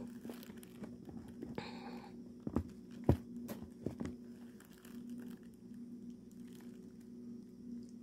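Plastic clamshell pastry container being handled: a few sharp clicks and crinkles, the loudest about three seconds in, over a steady low hum.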